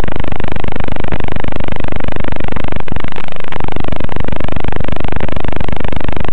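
Micro quadcopter motors and propellers buzzing loudly and steadily. Several pitches slide up and down against each other as the throttle changes, with a short dip about three seconds in.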